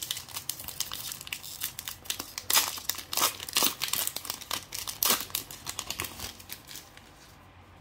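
Foil wrapper of a Pokémon card booster pack being torn open and crinkled in the hands: a dense run of sharp crackles and rips that fade out near the end.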